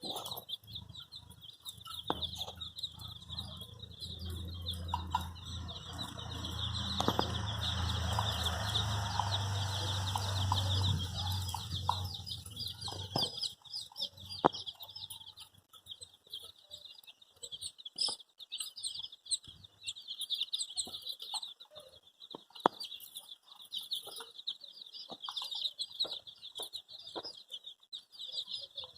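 A crowd of baby chicks peeping continuously in a dense, high-pitched chorus. From about three seconds in to about thirteen seconds a low rumbling noise runs underneath, and scattered light taps sound throughout.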